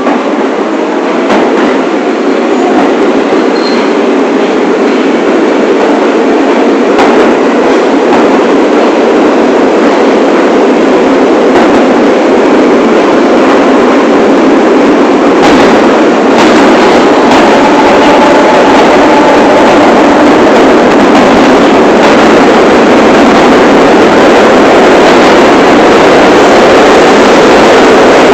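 New York City subway train on the 1 line running along the track: a loud, steady rumble of wheels on rail that builds over the first couple of seconds and then holds. A few sharp clacks come through, notably about halfway in.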